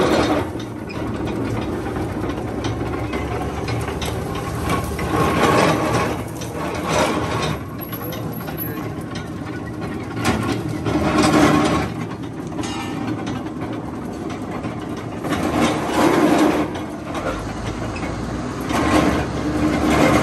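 Sugarcane juice crusher running, its belt-driven flywheel, open gears and rollers clattering steadily, with louder surges every few seconds.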